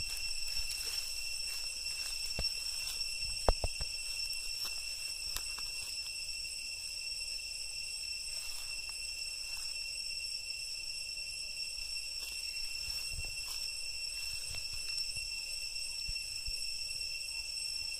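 Insects droning steadily, a high whine held on a few fixed pitches, with scattered small clicks and one sharp knock about three and a half seconds in.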